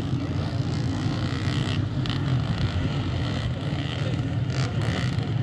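Dirt bike engines running, heard as a steady low drone.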